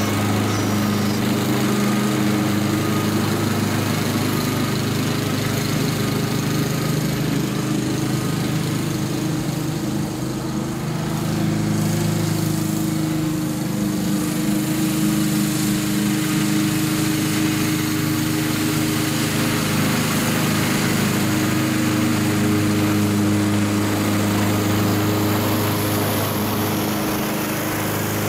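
Gasoline walk-behind lawn mower running steadily while mowing.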